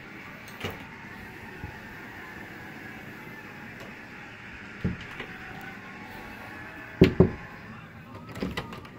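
Laundry closet door being opened and shut, with a few light knocks, then a loud double clack about seven seconds in and more light knocks near the end. A steady faint hiss runs underneath.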